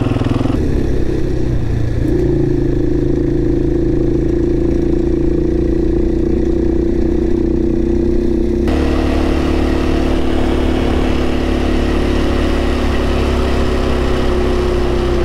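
Motorcycle engine running at a steady, even speed under way, with road and wind noise. The pitch shifts slightly about two seconds in, and the rougher noise above the engine grows louder about nine seconds in.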